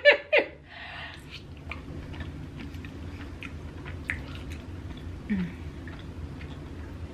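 Close-miked chewing of a person eating soft crawfish-stuffed potato, small wet mouth clicks scattered throughout. A brief laugh at the very start and a short falling hum about five seconds in.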